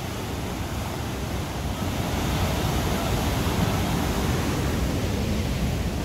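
Waterfall of white water pouring through a narrow rock gorge: a steady rush of falling water.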